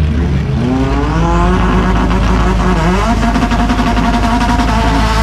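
Honda Civic's four-cylinder engine revving hard during a burnout at the drag-strip start line. The pitch climbs for about three seconds, dips sharply, then is held steady at high revs while the tyres spin and smoke.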